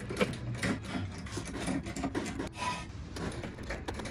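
Hydraulic floor jack being pumped by its handle to raise a car: a run of irregular clicks, knocks and scraping rubs with the strokes.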